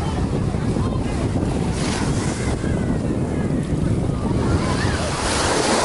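Wind buffeting the microphone over waves washing ashore; the hiss of the wash swells about two seconds in and again near the end.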